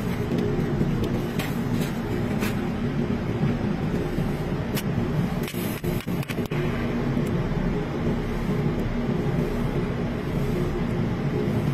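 Steady low machinery hum with a few sharp ticks in the first five seconds and brief drops about halfway through, heard while a stainless patch is TIG-welded onto a container panel.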